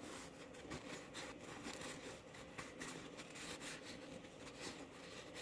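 Faint rubbing and light handling sounds, small irregular scrapes and taps, over a faint steady hum.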